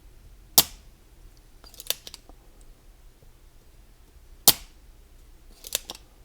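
Spring-loaded solder sucker (desoldering pump) firing twice with a sharp snap as its plunger releases, each followed a second or so later by smaller clicks of the plunger being pushed back down and latched.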